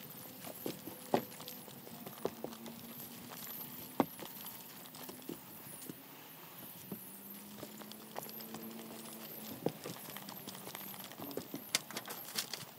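Scattered, irregular sharp clicks and knocks over faint outdoor background noise, with the loudest knocks about a second in, around four seconds in, and a quick run of clicks near the end.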